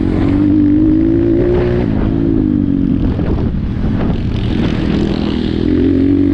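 Apollo RXF 150 pit bike's single-cylinder four-stroke engine running under load while riding. The revs climb over the first couple of seconds, drop off and waver in the middle, and climb again near the end.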